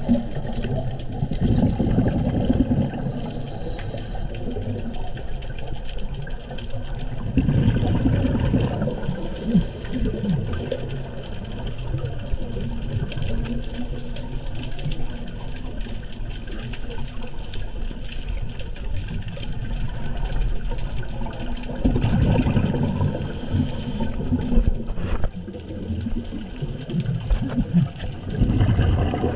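Scuba diver breathing through a regulator underwater: exhaled bubbles rumble and gurgle in four bouts of a few seconds each, some with a short hiss of air through the regulator, with a long stretch of steady underwater wash in the middle.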